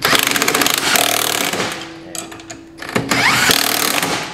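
Cordless impact wrench hammering a strut-to-knuckle bolt home through a freshly powder-coated steering knuckle, in two rattling bursts with a short lull between. The bolt draws in comfortably, breaking through the powder coat.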